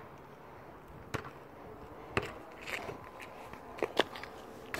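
A basketball bouncing on an asphalt court: about six sharp, unevenly spaced knocks, two of them close together a little before the end.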